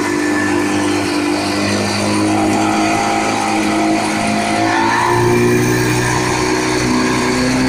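A 40-horsepower outboard motor running at speed, pushing a metal boat across a river, with a steady drone over rushing wind and water spray. Its pitch rises a little about five seconds in.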